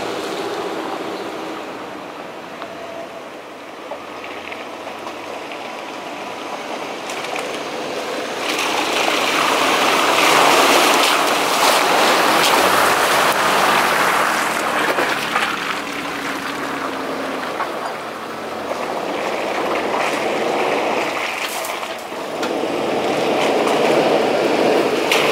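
Toyota Land Cruiser engine pulling the truck through a muddy puddle, its tyres splashing and throwing water, loudest from about nine to fifteen seconds in. Another off-road truck's engine and splashing build again near the end as it comes through.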